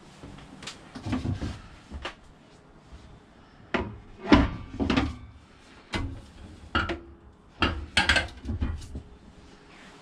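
A hand handling the cover on a small travel-trailer kitchen counter: about a dozen separate hard knocks and clunks, some with a short ring, the busiest stretch around the middle and again near the end.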